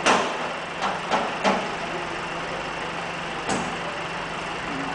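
A truck's engine idling with a steady hum, with five sharp knocks over it: the loudest right at the start, three more within the next second and a half, and one about three and a half seconds in.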